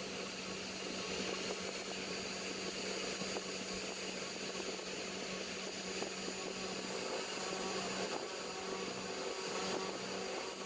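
Cheap air-assist unit on a CNC 1419 engraver running steadily: a constant hum over an even hiss of blowing air.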